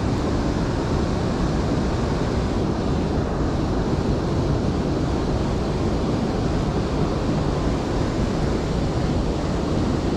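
Steady rush of river water tumbling over a low dam and through the current, mixed with wind buffeting the microphone.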